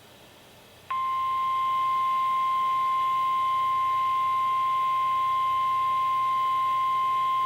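NOAA Weather Radio 1050 Hz warning alarm tone, heard from a weather radio's speaker. It starts abruptly about a second in after a brief hush and holds as one steady high tone. It is the signal that a warning message, here a flood warning, is about to be broadcast and that alert-ready receivers should activate.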